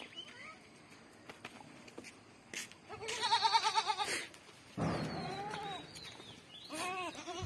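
Beetal goat kids bleating. A loud, quavering bleat comes about three seconds in, followed by two shorter calls near the end.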